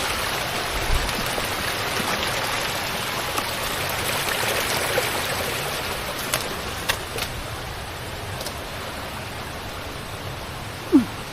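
Creek water rushing steadily, easing a little after about six seconds, with a few sharp clicks partway through and a brief vocal sound near the end.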